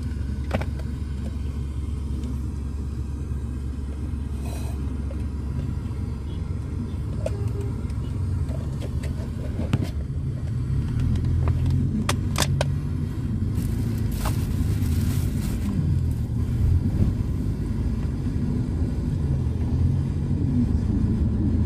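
Road vehicle engines running in slow traffic: a steady low rumble with wavering engine tones, a few faint clicks, and a slight swell in the second half.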